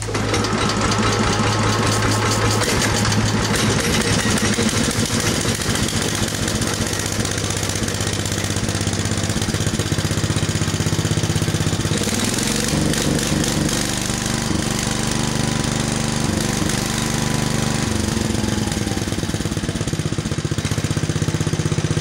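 Old garden tractor's small air-cooled engine running steadily and loudly, fresh off repairs to its idler pulley and a newly wired kill switch. The engine note changes about twelve seconds in as the throttle lever is worked.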